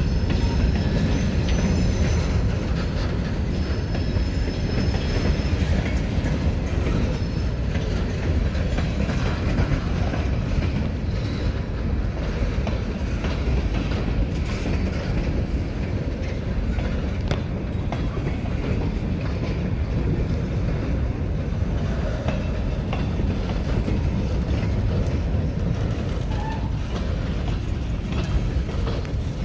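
Wheeling and Lake Erie local freight train rolling around a tight curve: a steady low rumble of wheels on rail with scattered clicks over the joints, and faint high wheel squeal in the first several seconds.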